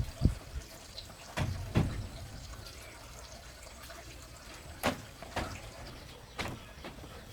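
About six sharp knocks at irregular intervals, over a low steady background noise.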